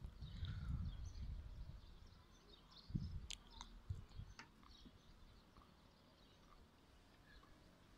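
Faint outdoor ambience: scattered faint high chirps of distant small birds, with low rumbles on the phone's microphone in the first second and a half and again around three seconds in. A few sharp clicks come between three and four and a half seconds.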